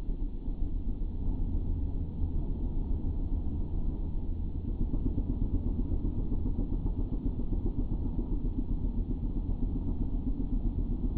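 Steady rumble of a small motorcycle cruising along a road, mixed with wind buffeting the camera's microphone.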